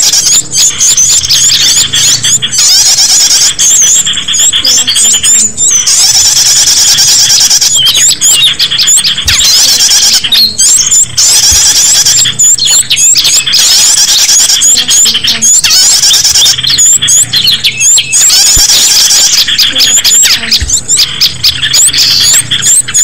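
Small-bird lure call: a dense chorus of small birds' shrill, rapid chirps and twitters, coming in bursts of a second or a few seconds with short breaks between them. It is a recording played to draw small wild birds in.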